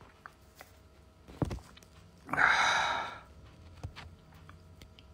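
A man's breath blown out hard in one long sigh, lasting under a second, about halfway through, against the burn of a habanero he has just eaten. A soft low thump comes just before it.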